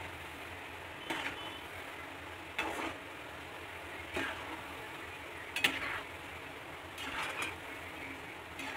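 Namak paare deep-frying in hot oil in a kadhai, a steady sizzle. A metal slotted ladle scrapes and clinks against the pan every second or two as the pieces are stirred.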